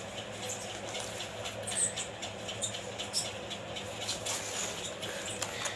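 Light scattered ticks and scrapes of a cardboard model house being handled and turned, over a steady faint background hum.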